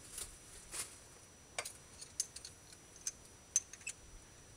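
Faint, irregular light metal clicks and taps, about eight in a few seconds, from a spark plug and hand tools being handled and lined up with a spark plug hole in the cylinder head.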